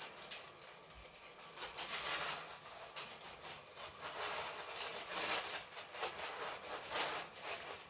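Lego City 60197 passenger train running on plastic Lego track: an irregular clicking rattle of its wheels and coupled wagons over the track, louder from about two seconds in.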